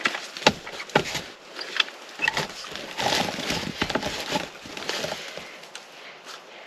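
Handling noise of a scoped hunting rifle being lifted and shouldered: two sharp knocks about half a second apart, then a few seconds of rustling from clothing and gear that dies away near the end.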